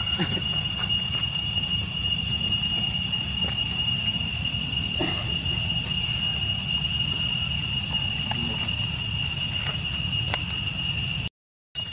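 Steady, unbroken high-pitched drone of insects calling in the undergrowth, over a low outdoor rumble. The sound cuts out completely for a moment near the end.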